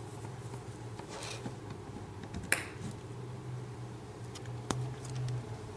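Quiet handling noise: a few light clicks, two of them sharper, about two and a half and nearly five seconds in, over a faint low steady hum, as the power cord is handled.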